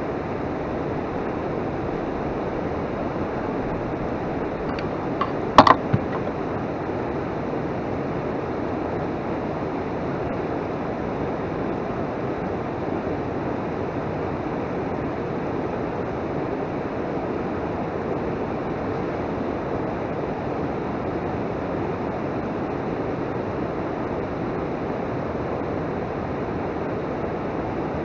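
Steady rushing noise of river water, with a short cluster of sharp clicks about five and a half seconds in.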